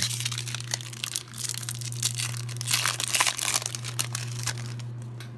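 Foil wrapper of a Pokémon trading card booster pack crinkling and tearing as it is opened by hand, loudest a little before halfway, over a steady low hum.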